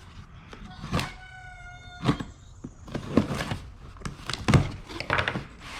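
Boxes and loose items being handled and set down: a series of knocks and thuds, the loudest about four and a half seconds in, with a brief ringing tone for about a second after the first knock.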